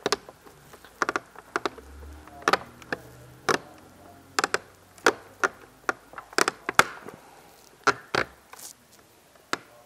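Replacement mirror glass being pressed by hand onto the clips of a Toyota Tacoma side-mirror housing, with a string of sharp plastic clicks and knocks at irregular intervals as it seats on its clips.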